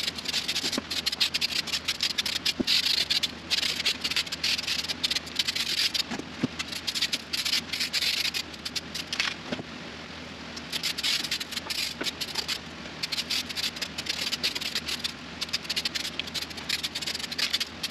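Aerosol spray paint can spraying in repeated bursts of hiss, each lasting one to three seconds with short breaks between, over a steady patter of clicks and rattles.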